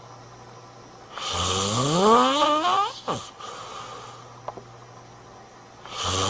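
A man snoring: about a second in comes one loud, rasping snore whose pitch rises steadily and ends in a quick falling squeak. A quieter pause follows, and the next snore starts near the end.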